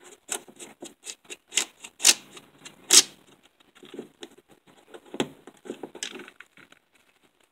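Irregular light clicks and knocks of a Homelite 150 chainsaw's plastic recoil starter housing and coiled recoil spring being handled against a wooden bench as the spring is slid out of its holder to expand into the housing. The clicking stops near the end.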